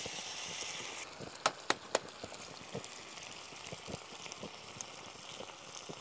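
A freshly cracked egg frying on a hot griddle plate beside pieces of pork, sizzling. The sizzle is loudest for about the first second as the egg settles, then eases to a steadier hiss with scattered sharp pops.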